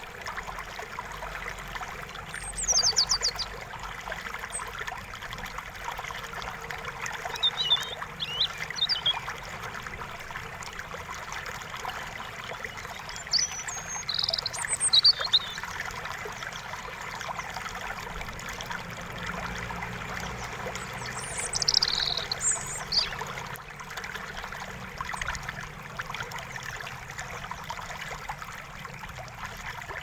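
Steady rush of running water, with small birds chirping in short bursts a few times, about 3, 8, 14 and 22 seconds in.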